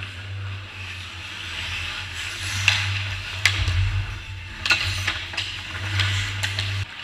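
Ice hockey skate blades scraping and carving on the ice, with a run of sharp clacks from sticks and puck as players scramble in front of the goal, over a steady low hum that drops away near the end.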